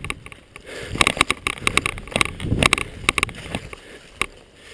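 Footsteps scuffing on slippery ground with gear knocking and rattling: a string of irregular knocks and scrapes from about a second in until shortly after four seconds.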